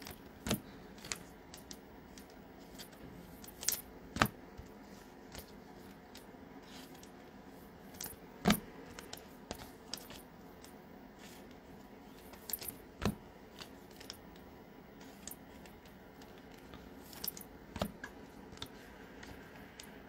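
Stiff Bowman Chrome trading cards being handled and stacked: scattered light clicks and taps as the cards slide and knock against each other, with a few sharper taps spread irregularly through the stretch.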